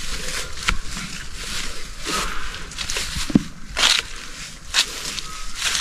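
Footsteps crunching and rustling through dry leaves and undergrowth, an uneven run of crackling steps.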